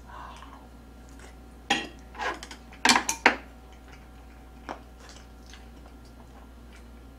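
Close-miked eating: a mouthful being chewed, with a cluster of sharp wet clicks and smacks and the light clink of metal chopsticks on the dishes, mostly between about two and three and a half seconds in, then one more click a little later.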